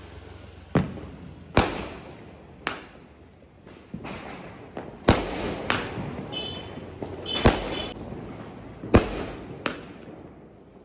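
Aerial fireworks bursting: about eight sharp bangs at irregular intervals, each trailing off in an echo, with crackling between them.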